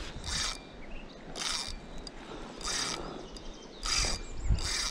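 A large 8000-size fishing reel ratcheting in short bursts, about once a second, five times, while a hooked wels catfish pulls hard on the line.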